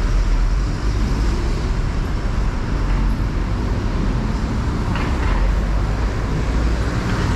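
Street traffic on a busy city avenue: cars and buses passing, a steady low rumble.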